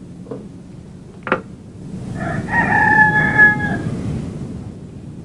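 A rooster crowing once, a single drawn-out call of nearly two seconds. A short knock comes about a second before it.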